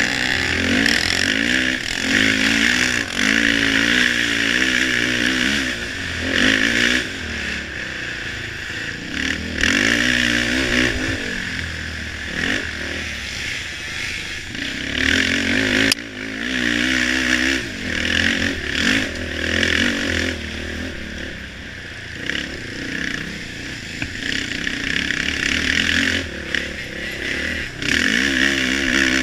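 Racing ATV engine revving up and dropping off again and again as the throttle is worked, heard close up from the quad itself, with some clatter over the rough trail.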